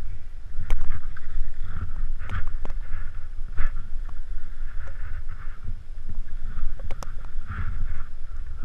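Skis swishing and scraping through soft, churned snow on a downhill run, over a steady low rumble of wind on the microphone, with a few sharp clicks from the skis or poles.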